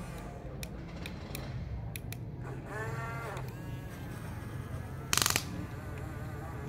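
Huina radio-controlled toy excavator working: a steady electric motor hum with a few clicks, a whine that rises and falls in pitch about three seconds in as the arm moves, and a short loud gravel crunch about five seconds in as the bucket digs into the gravel pile.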